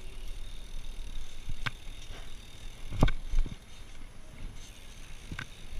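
BMX bike being ridden along a paved street: a low, steady rumble of riding, broken by a few sharp knocks and rattles from the bike. The loudest knock comes about three seconds in.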